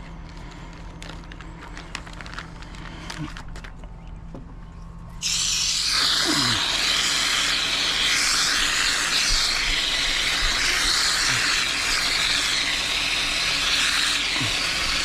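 Water running hard from a tap or hose, switched on about five seconds in and then a steady hiss, as fish is rinsed at a cleaning station. Before it come faint, scattered clicks and scrapes.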